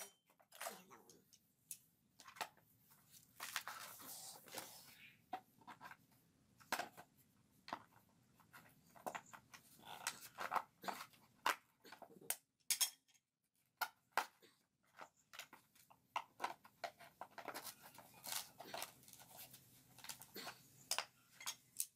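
A steel hand tool scraping and picking at the inside of a hollowed coconut shell, with irregular scrapes, clicks and light knocks of tool on shell.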